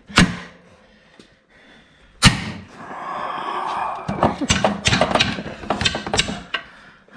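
Club hammer striking a bent steel motorbike luggage rack to straighten a crimped section: two hard metallic blows about two seconds apart, then a quicker run of lighter knocks and taps.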